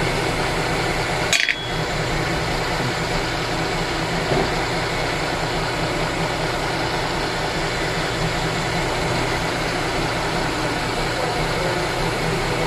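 Steady mechanical hum of running machinery, with a sharp click and a brief drop in the hum about a second and a half in.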